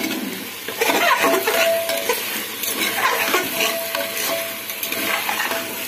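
Metal spatula stirring chunks of jackfruit and potato into frying masala in an aluminium pressure cooker, with repeated scraping strokes against the pot over a sizzle.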